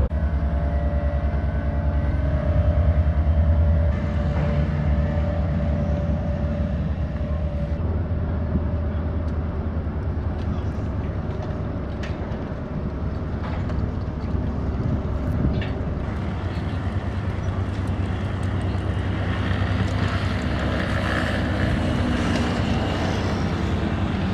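Steady low machinery rumble with a fine even pulse and a faint hum that fades out about a third of the way in.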